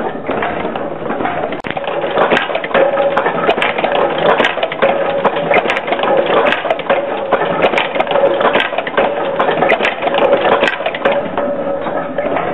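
Nail-making machines running: a rapid, irregular mechanical clatter of striking and stamping parts over a steady drone, louder from about two seconds in.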